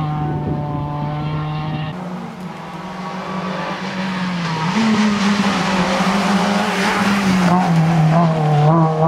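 Renault Clio Sport Group N rally car's four-cylinder engine running hard at high revs along a stage, its pitch stepping up about halfway through and rising and falling near the end with throttle and gear changes.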